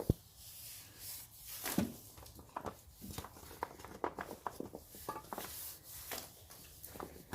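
Goats eating a treat of chopped carrots, apple and old bread: scattered small crunches, clicks and rustles at irregular times.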